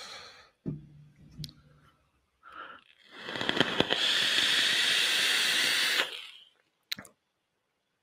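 A hard draw of about three seconds on a sub-ohm rebuildable vape with quad-core staggered fused Clapton coils: a loud airflow hiss with crackling as the hot coils vaporise the e-liquid. A single sharp click follows near the end.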